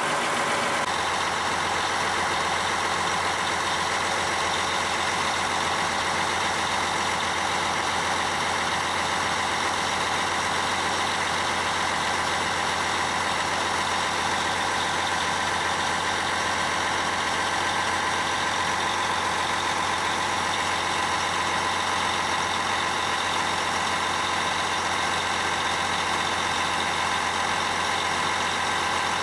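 600 HP John Deere diesel engine of a hydrostatically driven boom pump truck running at a steady speed, with a thin steady whine over the engine's hum.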